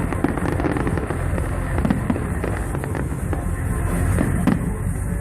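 Fireworks going off: a dense run of crackles and bangs, one after another.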